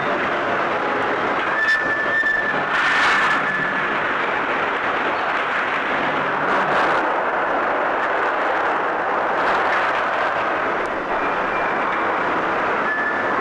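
Aerial ropeway carrying quarry stone in buckets, running with a steady mechanical rattle and rumble. Short high metallic squeals come about two and three seconds in and again near the end.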